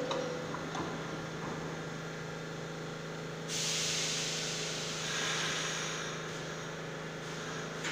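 A subway train standing with its doors closed: a steady electrical hum, then about three and a half seconds in a loud hiss of air that tails off over the next few seconds, the brakes releasing as the train gets ready to pull out.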